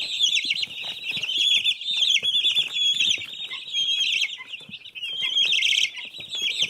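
A flock of chickens calling at once: a dense chorus of many overlapping short, high chirping calls with no pause.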